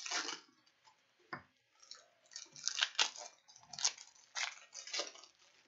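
Foil hockey card pack wrappers crinkling and cards being handled and shuffled in irregular bursts, with one sharp tap a little over a second in.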